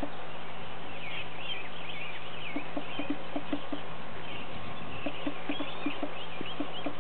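Hoofbeats of a gaited Tennessee Walking Horse on turf: runs of quick, even soft knocks, about four or five a second, that fade out and come back as the horse moves about. Birds sing in the background.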